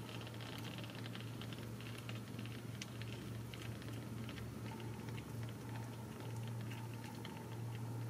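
Newborn Ragdoll kittens suckling at their mother: a dense run of small wet clicks and smacks, over a low steady hum.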